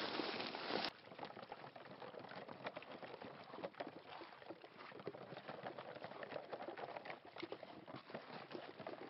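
Waders sloshing and splashing through shallow river water as hunters walk through it, with irregular small splashes throughout. A louder noise fills the first second and cuts off suddenly.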